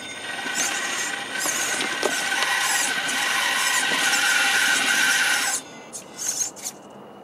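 RC rock crawler's electric motor and geartrain whining steadily under load as the truck drives onto the rocks, cutting off about five and a half seconds in, followed by a few short bursts of whine.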